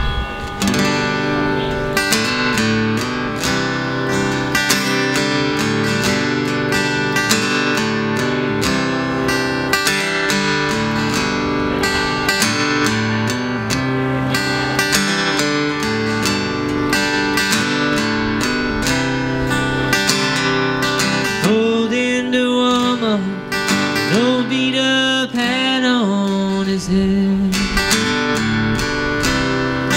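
Solo acoustic guitar strummed in a steady rhythm as the intro of a country song. A man's singing voice comes in about two-thirds of the way through.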